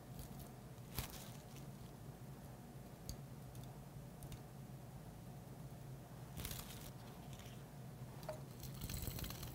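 Faint handling noise of a plastic zip bag and a plastic measuring spoon scooping ground cereal into a plastic weigh boat, with light crinkling and small ticks, a sharp click about a second in and a short rustle a little past the middle, over a steady low room hum.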